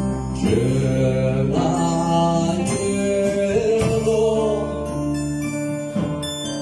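Live band playing, electric guitars over a drum kit, with held notes and a few sharp hits about every second.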